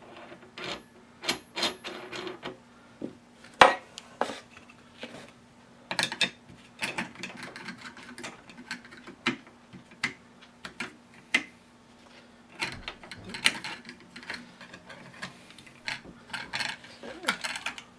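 Irregular clicks, taps and light metal rattles of an angle grinder's wheel and flange nut being handled and threaded onto the spindle, with one sharp knock a few seconds in.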